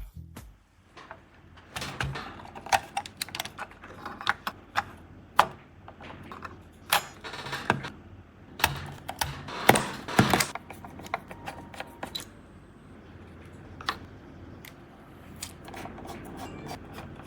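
Irregular clicks, taps and knocks of computer parts being handled and fitted together. They come thick for the first ten seconds or so, then grow sparse.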